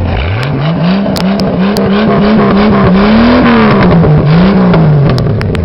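Car engine and exhaust revved up from idle, held up with a string of quick throttle blips that make the pitch rise and fall, then dropping back to idle near the end.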